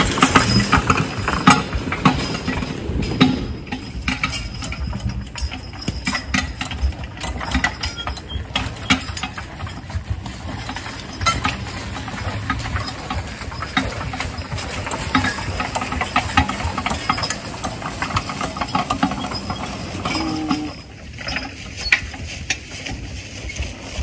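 Draft horse team hitched to a log arch, with a dense, irregular rattling and clinking of harness and chain over a steady low rumble, loudest in the first few seconds.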